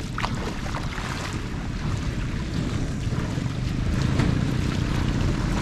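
Wind buffeting the microphone over water sloshing and splashing as a woven basket scoop is pushed through shallow muddy water, the rumble growing louder about four seconds in.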